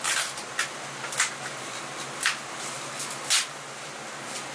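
Kitchen work sounds: five short, light clicks and knocks of dishes and utensils at irregular intervals over a steady background hum.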